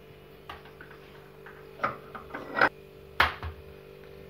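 Blender jar holding raw eggs being handled: a few sharp knocks and clicks, loudest a little past halfway and about three seconds in, over a faint steady hum.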